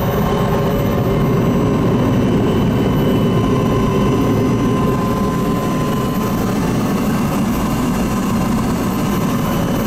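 An engine running steadily: a continuous drone with a faint steady whine on top.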